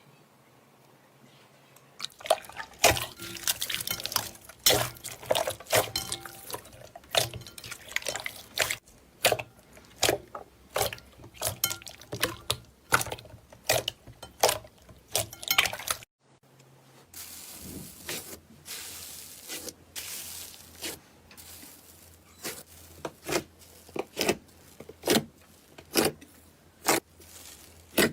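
Slime being squeezed and kneaded by hand, making dense wet crackles and sticky clicks. After an abrupt cut about halfway, it gives slower, separate pops about once a second.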